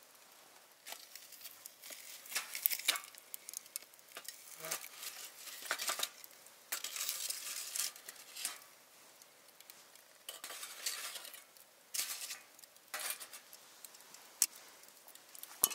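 Irregular scraping and clinking of utensils against cookware, in short uneven strokes, with two sharp clicks near the end.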